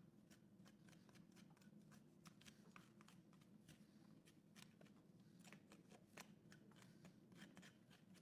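Horse's hoof being trimmed: faint, crisp clicks and snips of the trimming tools cutting into the horn, irregular, a few a second, over a low steady hum.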